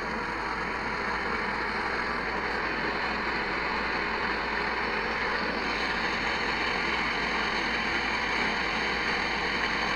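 Heat gun blowing steadily, heating a seized washing-machine part to loosen it.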